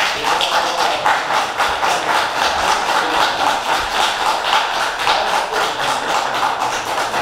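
A room full of people applauding: dense, steady clapping of many hands that does not let up.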